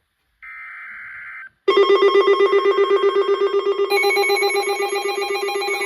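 Emergency alert tones: a short burst of data tone about half a second in, then a loud, rapidly pulsing electronic alarm of several tones starting near two seconds in, with more high tones added about two seconds later.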